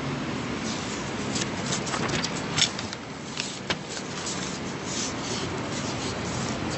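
Steady hiss with scattered light clicks and rustles, as of small objects or paper being handled.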